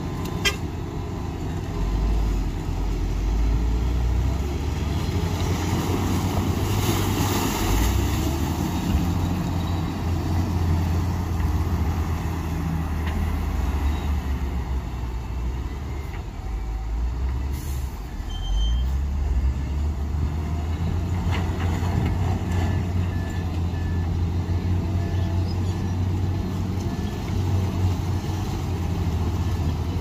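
Heavy diesel engines of a wheel loader and dump trucks running under load as rock fill is pushed, with a burst of hiss about a quarter of the way in. In the last third a reversing alarm beeps about twice a second.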